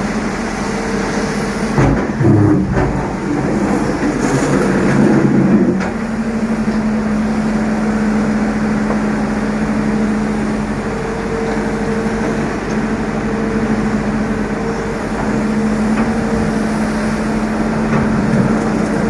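Hydraulic excavator's diesel engine running with a steady hum. Between about two and six seconds in there are a few knocks, and the engine note thickens and wavers as it works under load.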